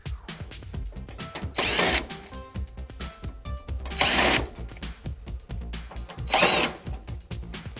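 Power drill/driver running in three short bursts of about half a second each, backing screws out of the heater's sheet-metal housing.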